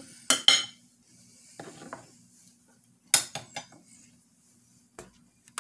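Metal fork and knife clinking against a ceramic plate and being set down on a wooden cutting board: two sharp clinks just after the start, a cluster of clinks about three seconds in, and a light tap near the end.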